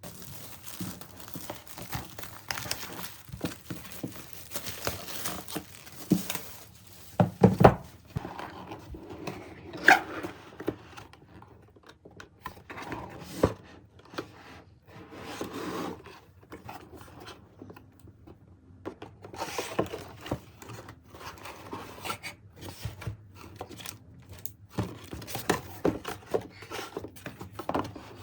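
Close handling noises: irregular rubbing, rustling and scraping, with a few sharper knocks, the loudest about seven and ten seconds in.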